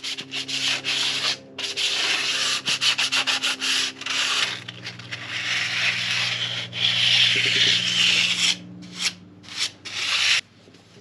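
Sandpaper rubbed by hand over cured wood filler, profiling the repair in quick back-and-forth strokes with a few short pauses.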